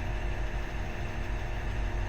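Heavy mining equipment's diesel engine running steadily: a deep, even rumble with a few faint steady tones over it.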